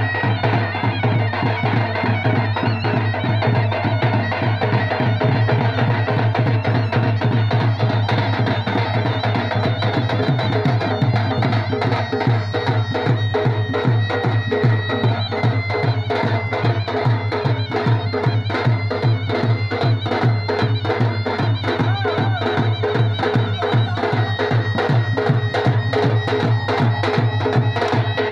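Live Sambalpuri folk music: a mahuri (folk shehnai, a double-reed pipe) plays a sustained, reedy melody over fast, steady dhol drumming.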